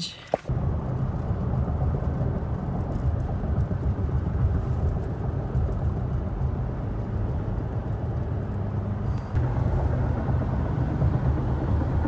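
Steady road and engine rumble inside the cab of a Toyota Tacoma pickup at highway speed, towing a travel trailer; it gets a little louder about nine seconds in.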